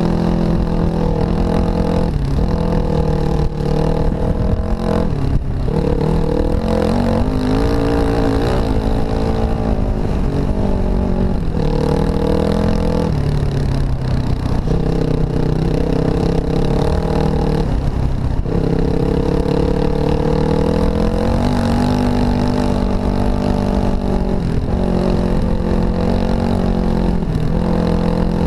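Dirt bike engine running under load, the pitch climbing as it revs and dropping back several times as the rider shifts or rolls off the throttle.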